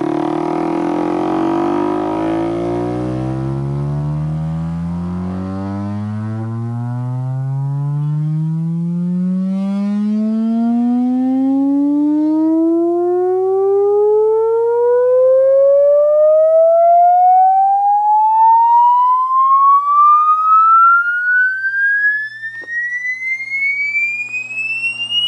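Sine-wave test sweep played through a full-range loudspeaker in a sealed acoustic-suspension cabinet: one tone rising steadily from a deep bass hum to a high-pitched whistle. It sounds rough with overtones in the bass. It is a test of the speaker, judged working but weak.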